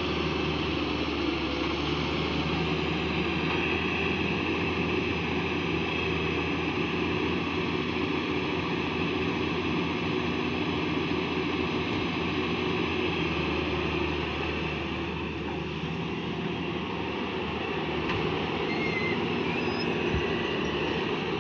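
Hyundai wheeled excavator's diesel engine running steadily under load while it digs soil and swings a full bucket, with a steady hiss over the engine note.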